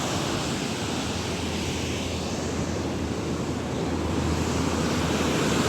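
Fast, torrential mountain river rushing over rocks: a steady rush of white water that grows a little louder near the end.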